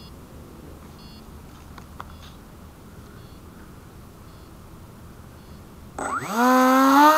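Short high beeps about once a second. About six seconds in, the model plane's electric motor and propeller spin up with a rising whine that settles into a loud, steady high-pitched drone.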